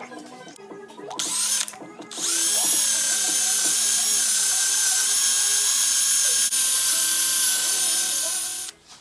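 A power tool motor whining at a steady high pitch, in two short bursts and then one long run of about six seconds that stops sharply near the end. Background music plays underneath.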